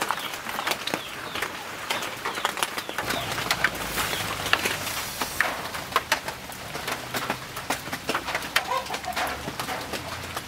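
Wood fire crackling under a clay cooking pot, with many short sharp pops, while birds call in the background.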